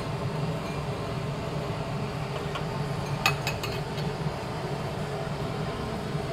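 A steady mechanical hum runs throughout, and about three seconds in come four quick sharp clinks of serving utensils or crockery.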